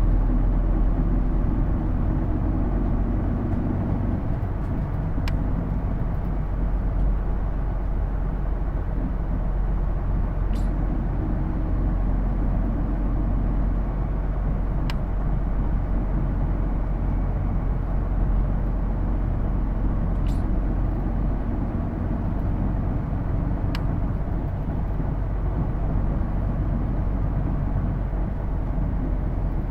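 Hino Blue Ribbon II city bus heard from inside the cabin while driving, with a steady engine and drivetrain drone. It carries the distinctive whine that the recordist puts down, with some doubt, to the transmission, sounding almost like an automatic. A few sharp clicks or rattles come at intervals.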